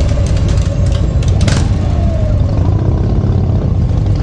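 Motorcycle engine running steadily at low road speed, heard from on the bike, a loud low drone. A brief sharp click about a second and a half in.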